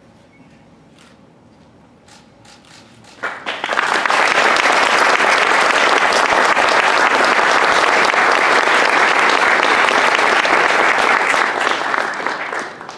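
Audience applauding, breaking out about three seconds in and dying away near the end.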